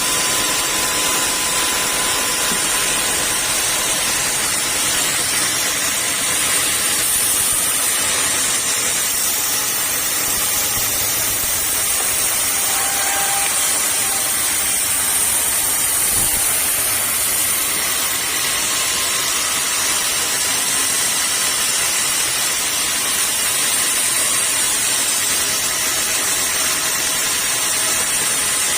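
Sawmill saw running steadily, a constant high-pitched hiss over a low machine hum, with no clear starts or stops.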